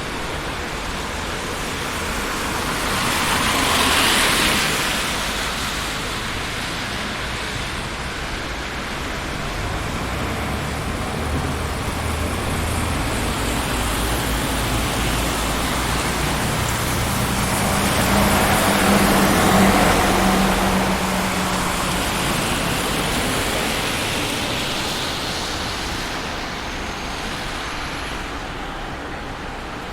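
Busy city street traffic: a steady wash of vehicle noise. Vehicles pass close about four seconds in and again around twenty seconds in, the second with a low engine hum.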